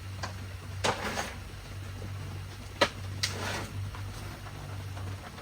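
A few short knocks and clinks of hand tools and metal parts being handled during an engine teardown, the sharpest about halfway through, over a steady low hum.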